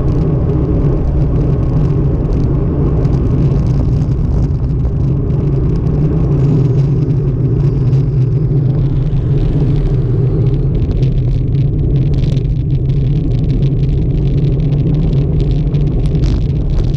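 Wind buffeting and road noise picked up by a camera on a moving bicycle: a steady, loud, low-pitched rush, with a scatter of small clicks and knocks in the second half as the bike rolls over the road surface.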